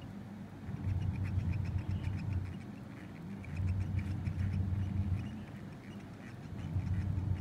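Baby Roborovski dwarf hamster chewing egg: quick, tiny clicks, several a second, over a low hum that swells and fades about every three seconds.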